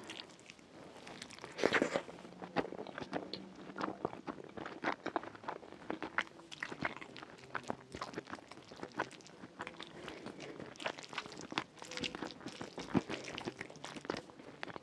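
Close-up eating sounds of Moroccan rfissa eaten by hand: wet chewing and smacking, and fingers working through the soft, saucy bread, lentils and chicken. The clicks and smacks are irregular and continuous, with one louder smack about two seconds in.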